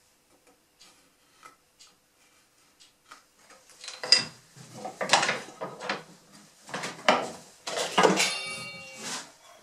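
Tools and wood pieces handled on a wooden workbench. First come faint scratches and light taps, then from about four seconds in a run of louder knocks and clatters as things are set down and picked up. One of them near the end carries a short metallic ring.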